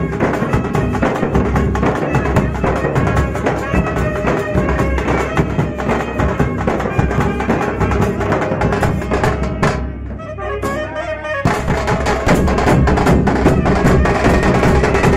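Live street band music: saxophones play a melody over large rope-tensioned barrel drums (dhol) beaten with sticks in a fast, dense rhythm. About ten seconds in, the drums drop out for nearly two seconds, leaving the melody alone, then come back in slightly louder.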